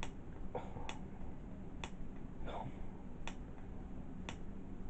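A series of short, sharp clicks, about seven, spaced irregularly, over a low steady hum.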